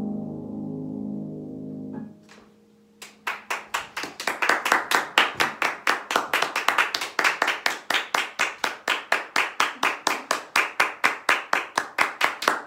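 The final chord of a concert pedal harp ringing out, damped by hand about two seconds in. After a second of quiet, steady applause of hand claps begins, about five claps a second.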